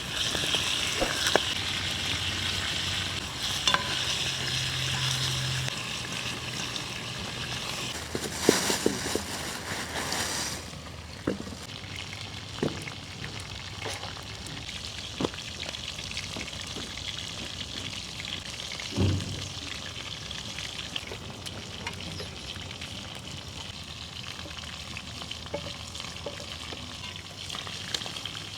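Food sizzling in a hot pan, loud for about the first ten seconds and then quieter, with scattered clicks and knocks of a utensil against the pan as it is stirred.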